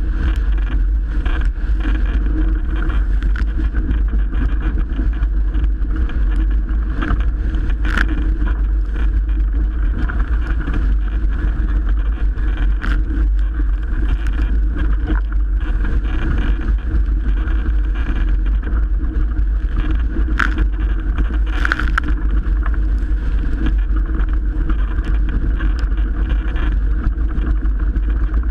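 Continuous heavy wind buffeting on the microphone and rushing water as a Melges 24 sailboat sails fast in 30-plus-knot winds, steady throughout, with a few sharp knocks scattered through it.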